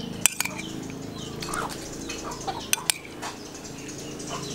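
A spoon clicks against a plate in two quick pairs, one just after the start and one a little past the middle, while birds chirp in the background.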